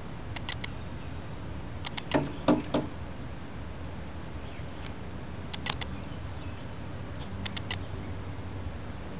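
A pet bird giving short, sharp squeaky chirps in quick bursts of two or three, four times, the bursts after about two seconds being the loudest, over a steady hiss.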